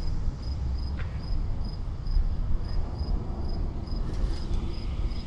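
An insect, likely a cricket, chirping at one steady high pitch, about four chirps a second, over a continuous low rumbling noise.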